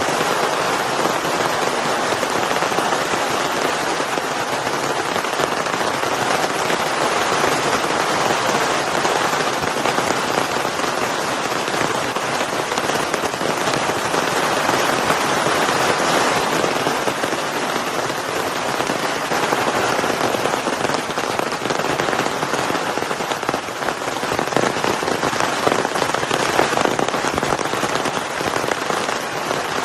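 Heavy rain falling steadily: a dense, even hiss of countless drops striking a surface.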